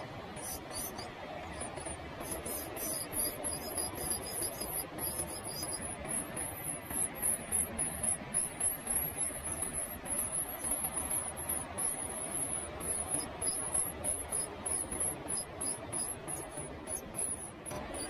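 Great tit nestlings begging in the nest: a continuous, very high chorus of thin, rapid peeps over a steady background hiss.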